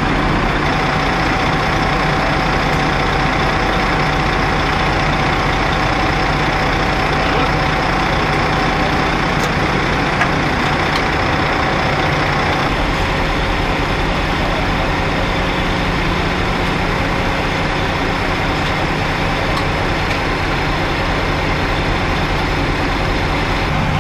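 A heavy vehicle engine idling steadily, with a steady hum above it that shifts lower in pitch about halfway through.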